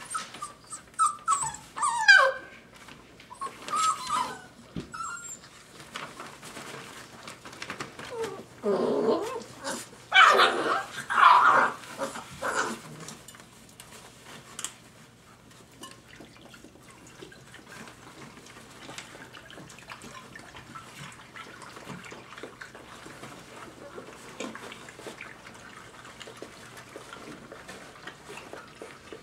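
Five-week-old Dogo Argentino puppies yelping and whining as they wrestle, with a few high calls in the first seconds and a louder run of yelps about ten seconds in. After that there is only faint scuffling and pattering of paws on the bedding.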